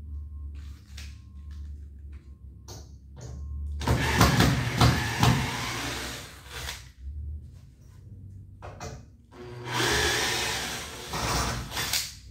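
Cordless drill-driver run in two bursts of about three seconds each, about four seconds in and again about ten seconds in, working into the ceiling profile overhead; light handling clicks between.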